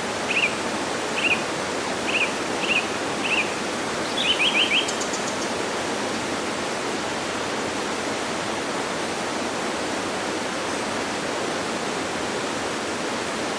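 Waterfall rushing steadily, with a small bird chirping about eight times in quick short notes during the first five seconds.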